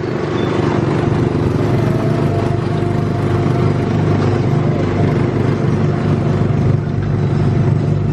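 Small gasoline engine of a Tomorrowland Speedway car running steadily, heard on board while driving.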